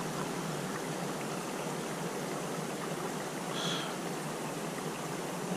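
Steady rush of water flowing hard out of a spillway into a high lake, with a brief faint high sound about three and a half seconds in.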